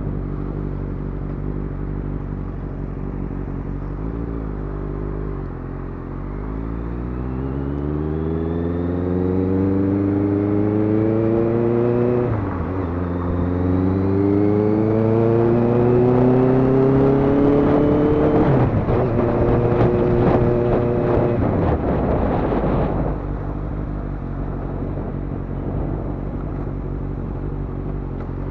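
Honda CB650F's inline-four engine heard from the saddle as the bike pulls away: its pitch climbs steadily, drops sharply at an upshift about twelve seconds in, climbs again, and drops at a second upshift about two-thirds through. It holds briefly, then eases off to a low steady run near the end.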